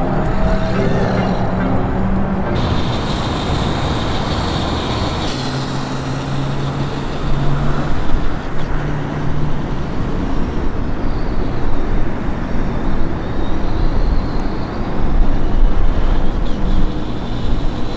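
Truck engine sound effect playing through small Sony SRS-XB10 Bluetooth speakers mounted on an RC truck: a steady engine-like noise that swells and eases, with a short low hum about six to nine seconds in.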